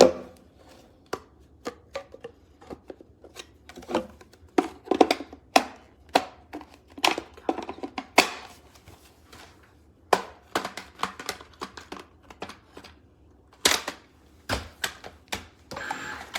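A run of irregular clicks and knocks of hard objects being handled, with a short rushing noise near the end.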